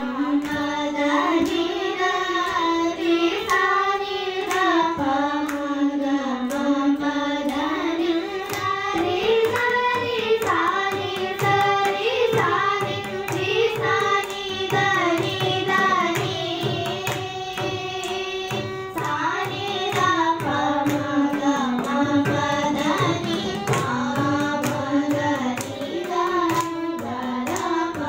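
Young girls' voices singing a Carnatic varnam in unison, with gliding, ornamented phrases. A violin accompanies them, and a mridangam plays steady sharp strokes.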